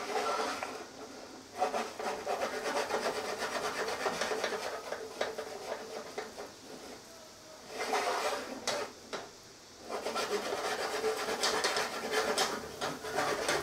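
Nonstick frying pan being twisted back and forth on a stove burner while chopsticks are held in the setting egg, making a rubbing, scraping sound in stretches of a few seconds with brief pauses between.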